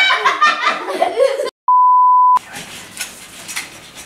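Laughter that cuts off abruptly into dead silence, followed by a single loud, steady electronic bleep of about three-quarters of a second. The bleep is a pure tone edited into the sound track. Quieter room sound follows it.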